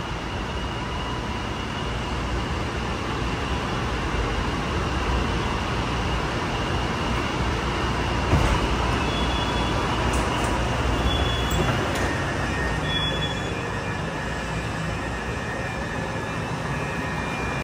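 Honolulu Skyline metro train running, heard from inside the passenger car: a steady rolling rumble with faint steady whines, a sharper knock about eight seconds in, and a new whine joining about twelve seconds in.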